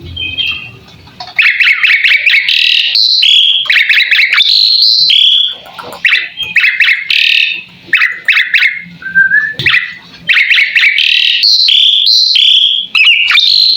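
Pied starling (jalak suren) singing loud runs of whistled and chattering notes in phrases, with short breaks about six and ten seconds in.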